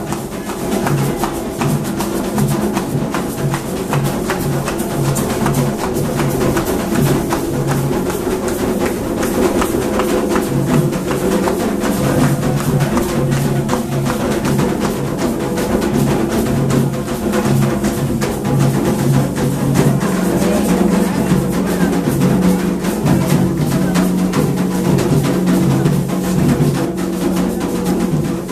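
Drum-led percussion music with a fast, steady beat and sharp wood-block-like clicks over sustained tones.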